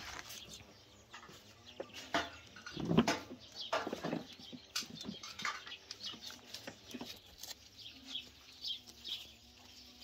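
Scattered clicks and knocks of a metal spoon against a plastic mixing bowl, the loudest about three seconds in. Faint bird calls are heard near the end.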